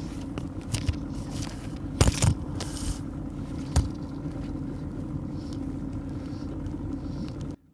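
Boat motor running with a steady low hum and rumble, with a few sharp knocks and scrapes around two to four seconds in. It cuts off suddenly near the end.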